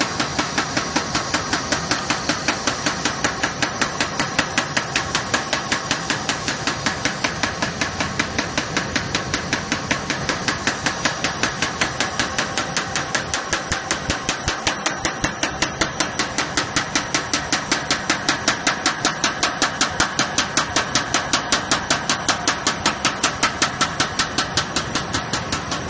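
Single-knife sheeter running, its cutting knife striking in a fast, even rhythm of several knocks a second over a steady machine hum.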